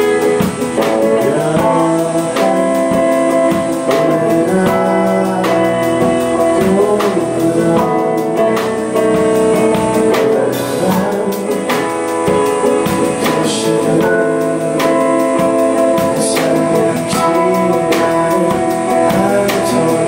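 A live rock band playing a song, electric guitar strumming over a drum kit keeping a steady beat.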